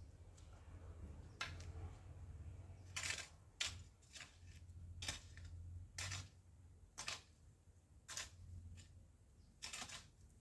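Hand hoe chopping into garden soil: short, sharp strikes roughly once a second at an uneven pace, a few coming in quick pairs.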